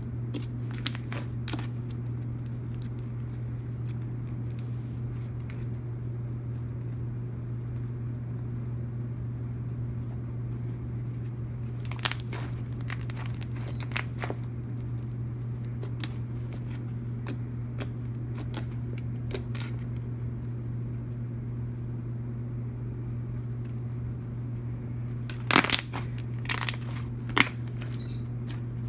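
Clicky butter slime being squished and poked, giving a few scattered sharp clicks and pops, most of them together near the end, over a steady low hum.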